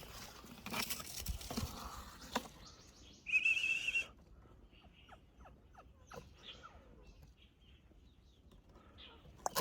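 Newborn puppy giving a high, wavering squeal about three seconds in, followed by a run of faint short squeaks, over some rustling.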